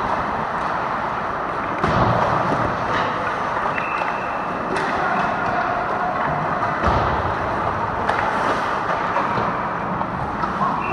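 Ice hockey practice in an indoor rink: a steady wash of rink noise with skates scraping the ice, and a few sharp knocks of pucks and sticks, about two, five and seven seconds in.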